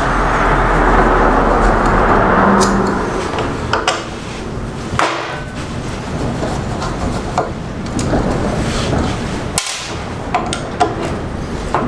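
Wind gusting and rushing, heaviest in the first few seconds, with scattered sharp knocks and clicks over it.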